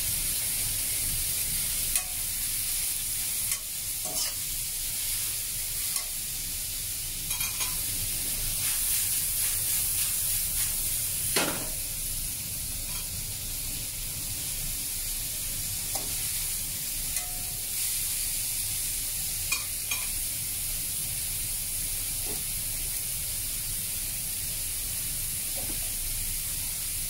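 Cauliflower stir-frying in a non-stick frying pan: a steady high sizzle, with a slotted spatula scraping and clicking against the pan every few seconds as it is stirred.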